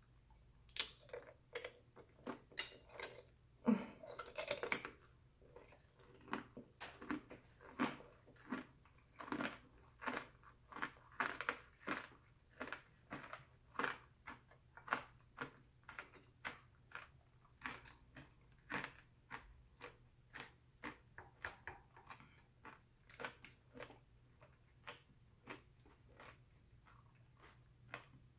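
Close-up chewing of a candied strawberry: the hard sugar shell crunches with each chew, about two crunches a second, growing fainter near the end.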